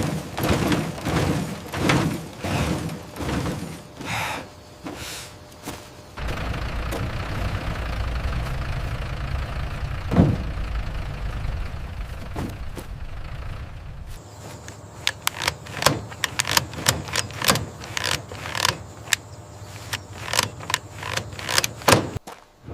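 Machinery clattering: a run of repeated knocks, then a steady low running noise with a single thump midway, then quick clicks and knocks in the last third.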